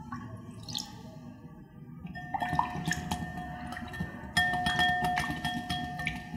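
Milk poured briefly into oil in a glass bowl, then from about two seconds in a silicone-coated whisk stirring fast, its wires clicking against the glass bowl, which rings after each tap.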